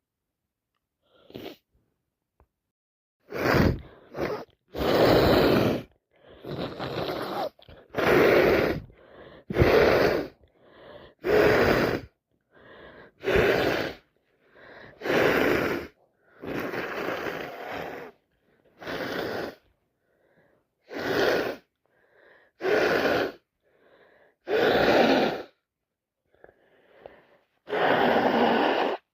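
A person sneezing and sniffing over and over in a fit she can't stop, with breathy gasps in between. There are more than a dozen noisy bursts, one every second or two, some short and some drawn out.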